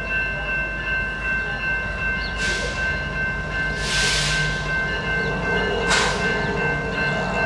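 Distant freight train approaching: a low diesel locomotive rumble under steady high ringing tones, with three short hissing swishes.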